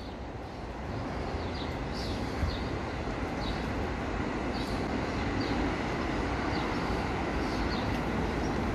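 Steady rumble of city vehicle noise that grows a little louder about a second in, with faint high chirps repeating over it.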